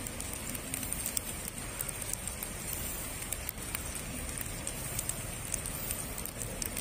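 Steady outdoor background hiss with many small scattered crackles and ticks and a low rumble underneath; no horn or close train passing yet.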